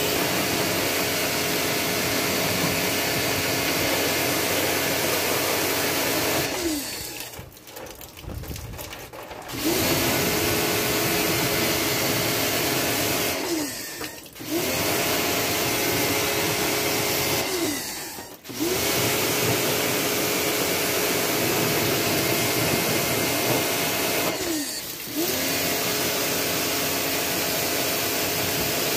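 Electric pressure washer spraying a water jet onto an air-conditioner outdoor unit, its motor and pump running steadily with a hiss of spray. Four times the trigger is released and the motor winds down, the longest pause about three seconds; each time it spins back up as spraying resumes.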